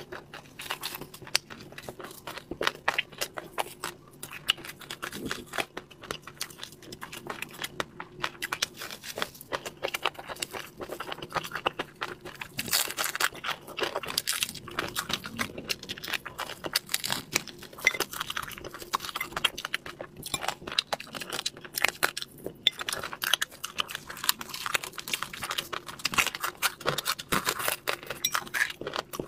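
Close-miked eating of a spice-crusted whole fish: dense, irregular crunching and chewing, with plastic gloves crinkling as the fish is torn apart by hand.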